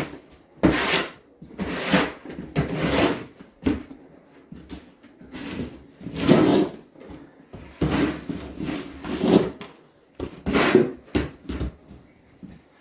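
Snow shovel scraping and scooping snow in a string of separate strokes with short gaps between them.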